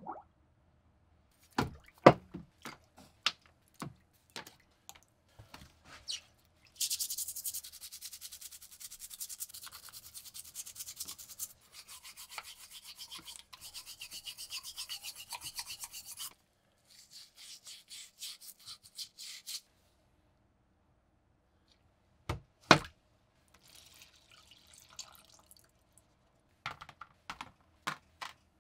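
Toothbrush scrubbing the threaded metal handle of a rusty survival knife in soapy water, a fast, steady, bristly rubbing that runs for about nine seconds, stops briefly and resumes for a few seconds. Scattered clicks and knocks of the metal parts come before it, and a couple of sharp knocks follow as the handle is set down on a tray.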